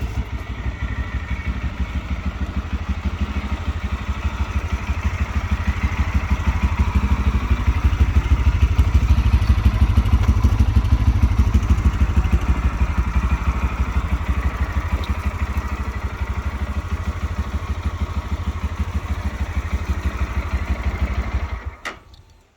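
Lifan KPM200 motorcycle's single-cylinder 200cc engine idling with an even pulse after a fresh oil change. It gets a little louder in the middle, then is switched off near the end.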